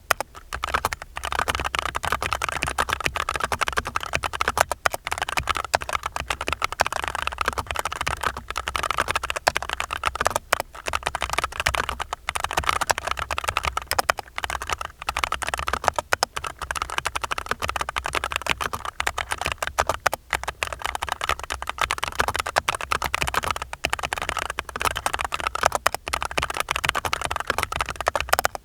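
Continuous fast typing on an archon RE:AL FX2 mechanical keyboard with FEKER Holy Panda v2 tactile switches, lubed springs and stabilizers, and noise-absorbing foam: a dense, unbroken stream of key clacks.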